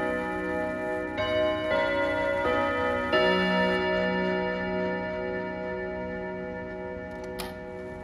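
Antique French Odo pendulum wall clock's eight-hammer chime striking its long gong rods: several hammer blows in the first three seconds, then the chord rings on and slowly dies away. A short click sounds near the end.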